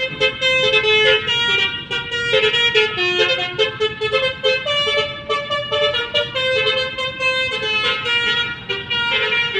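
Bus telolet horn, a set of multi-tone air horns playing a quick melody of short notes that step up and down in pitch.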